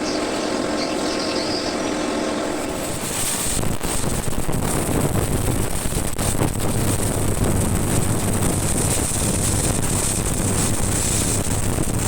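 A steady hum for the first few seconds, then an arc-welding electrode striking about three seconds in and burning with a continuous crackling, frying hiss over a low electrical hum as a weld is run on steel reinforcing bar.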